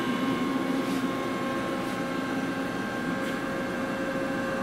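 Steady hum with several steady tones from a powered-up but idle 1987 Mori Seiki TL-5A CNC lathe, its electrical cabinet cooling fans and hydraulic system running with the spindle stopped.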